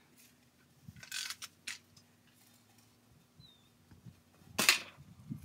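Fishing line and a stick being handled: a few brief rustling scrapes, the loudest about four and a half seconds in.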